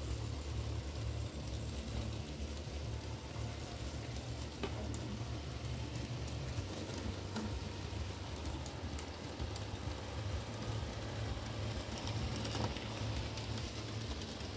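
N-scale model trains running on the layout: a steady low rumble and hiss of the small locomotive motors and wheels on the track, with a few faint clicks.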